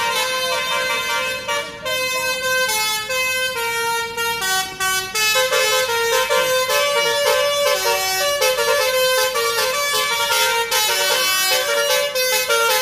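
Tour bus's basuri musical air horn playing a melody, a run of short held notes stepping from pitch to pitch with hardly a break.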